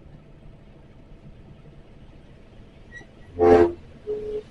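Steady low hum of the truck's engine running, with a short loud horn blast about three and a half seconds in, followed by a brief second, single-pitched beep.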